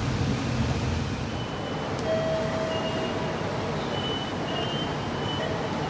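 Railway station ambience: a steady low rumble and hiss. A click comes about two seconds in, and after it faint thin beeping tones come and go.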